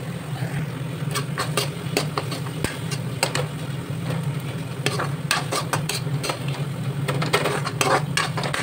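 A steel spoon stirring and scraping spice powders into onion-tomato masala frying in a kadhai, making many short scrapes and clinks against the pan from about a second in. A steady low hum runs underneath.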